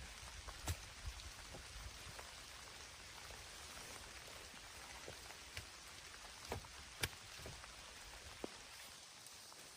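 Steady rain falling, with scattered single drops ticking sharply on a surface; two drips stand out, one near the start and one about seven seconds in.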